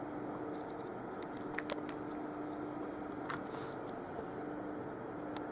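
Room background with a steady low hum and a few light clicks, the sharpest about one and three-quarter seconds in.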